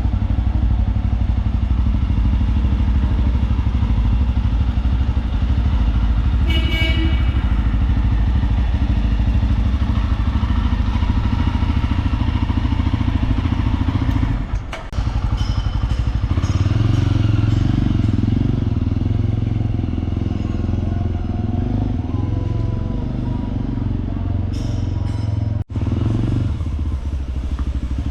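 Motorcycle engine running steadily. The sound drops out abruptly about halfway through and again briefly near the end.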